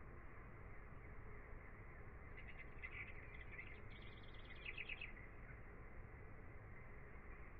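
Faint birdsong: two quick runs of rapid, high chirps in the middle, over a steady low hiss.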